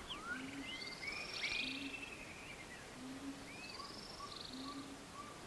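Faint birds chirping and calling, with quick sweeping notes, under a soft low note that repeats about every one and a half seconds and a run of short, lower calls near the end.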